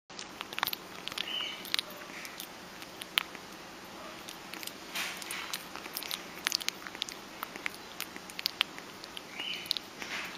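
Baby fruit bat (flying fox) eating soft fruit: rapid wet smacking and licking clicks of its mouth and tongue, with two short high squeaks, one about a second in and one near the end.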